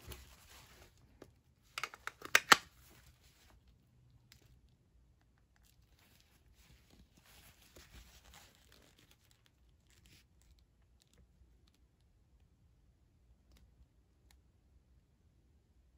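A few sharp metallic clicks about two seconds in as two small metal food cans are picked up and knocked together, then faint rustling as the stacked cans are turned over in gloved hands.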